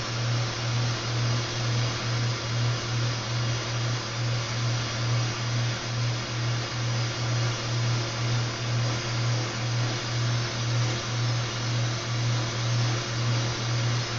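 Soldering torch flame burning steadily with a hiss, over a low hum that pulses about twice a second, as it heats the silver piece to flow silver solder.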